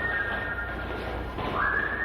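Whistling: a held high note, then a quick upward slide about one and a half seconds in to another held, slightly higher note.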